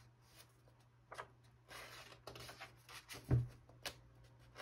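Pages of a large book being turned and handled: a few light paper rustles and taps, with a dull thump about three seconds in as a hand presses the page flat. A faint steady low hum lies underneath.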